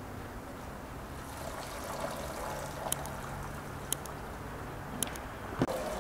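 Hands swishing chopped green herbs in a bowl of water, then lifting dripping handfuls so the water trickles and splashes back into the bowl. A few light knocks sound over it, the sharpest near the end.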